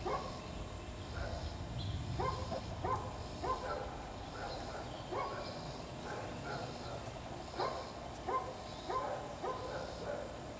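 Dogs barking over and over, short barks that drop in pitch, about one and a half a second.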